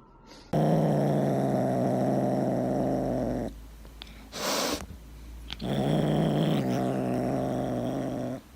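Cat growling: two long, low, steady growls, with a short hiss-like noise between them.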